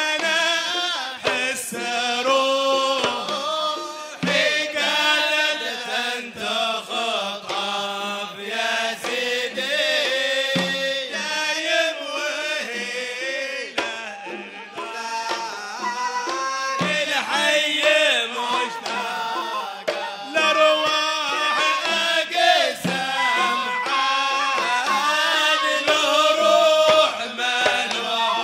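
Hadrami zarbadi song: men singing a qasida at the microphones, accompanied by hand drums beating a steady rhythm.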